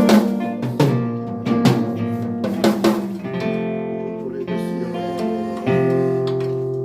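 Live band sound check: several hard drum-kit hits together with strummed guitar chords, then held guitar chords ringing out, with a new chord struck near the end and fading.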